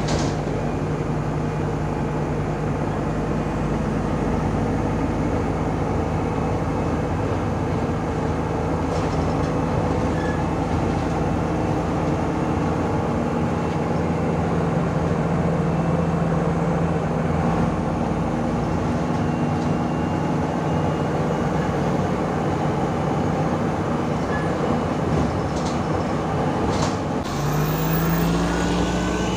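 MAZ-105 articulated city bus's diesel engine running steadily under way, heard from inside the passenger cabin, with a few short knocks. Near the end the sound changes and the engine note rises.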